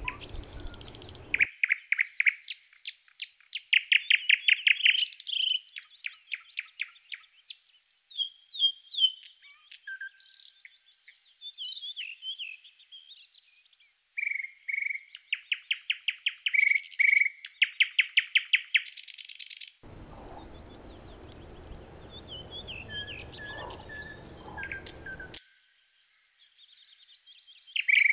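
Songbirds chirping and singing from a recorded nature-sound bed: fast trills of repeated chirps alternate with short whistled notes.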